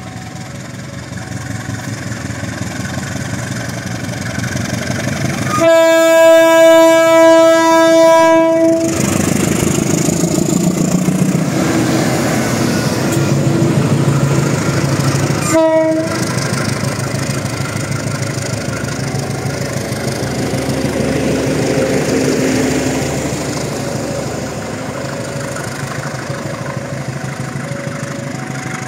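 Diesel-electric locomotive hauling a passenger train past at close range, its engine running under the rolling rumble of the train. The horn sounds one long blast about six seconds in, the loudest sound here, and a short toot near sixteen seconds.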